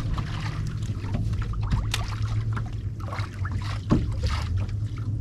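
Steady low hum from the fishing boat, with water splashing and trickling and scattered small clicks and knocks.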